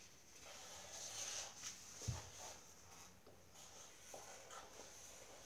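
Faint scratching of felt-tip markers drawing on paper, with a single soft thump about two seconds in.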